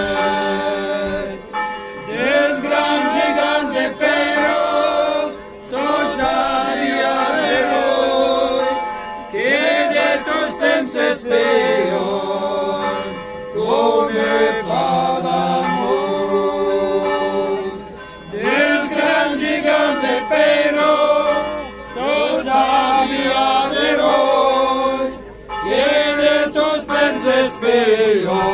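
A group of men singing together unaccompanied, several voices at once, in phrases of a few seconds broken by short pauses for breath.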